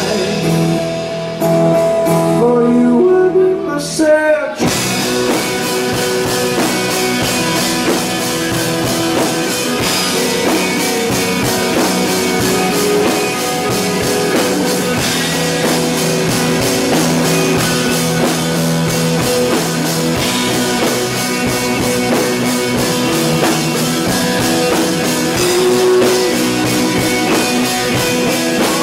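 Rock band playing with singing: electric guitar and vocals over a sparser opening, then the full band with drum kit comes in about four and a half seconds in and keeps going.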